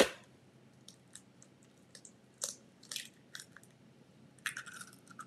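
An egg cracked against the rim of a food processor bowl with one sharp crack. The shell is then pulled apart with a string of small crackles and crunches.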